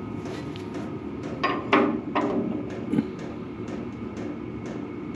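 Steel parts clanking as they are handled: four sharp, slightly ringing knocks between about a second and a half and three seconds in, over a steady low hum in the workshop.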